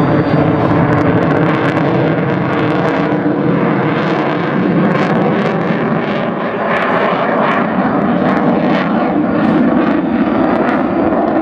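Jet noise from an F-22 Raptor's twin turbofan engines during its display: a loud, steady rush with many sharp crackles through it.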